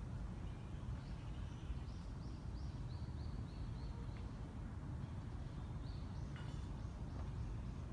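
Small birds chirping in quick runs of short, high, sliding calls, over a steady low outdoor rumble.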